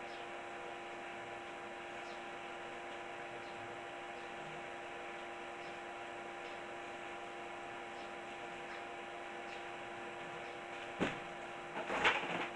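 Steady electrical hum of a few even tones over faint hiss. A single sharp click comes near the end, followed by brief knocking and movement noises.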